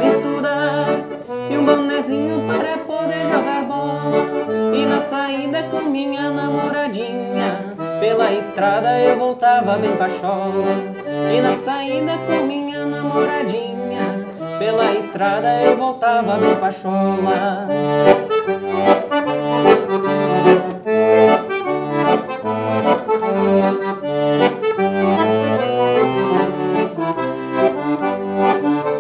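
Piano accordion playing an instrumental passage of a traditional tune: a melody on the right-hand keys over a steady left-hand bass rhythm.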